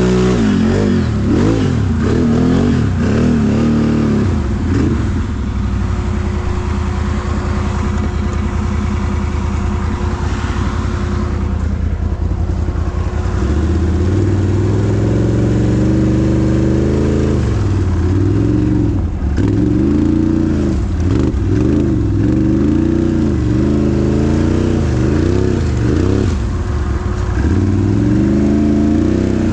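Can-Am ATV engine revving hard while churning through deep mud, its pitch rising and falling again and again. It holds a steadier high pitch for several seconds in the middle, then is revved up and down many times in quick succession.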